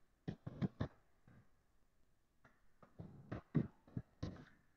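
Computer keyboard keys typed in two quick runs: about four keystrokes, a pause of about two seconds, then a longer run of about eight keystrokes as a password is entered.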